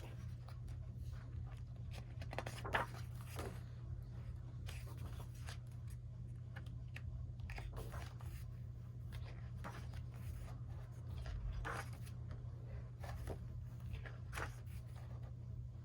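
Pages of a photobook being turned and handled: a series of short paper rustles and slides, the sharpest about three seconds in. Under them runs a steady low hum.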